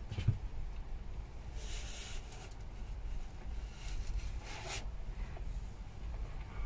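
A cloth rubbing excess fire cement off a stove flue pipe joint: a few short, faint wiping strokes, about two seconds in and again near five seconds, over a low steady hum.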